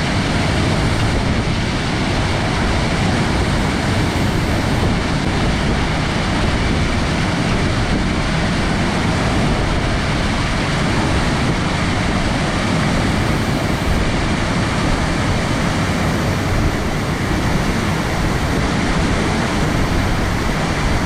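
Waterfall rushing steadily, the water crashing down close by into its pool.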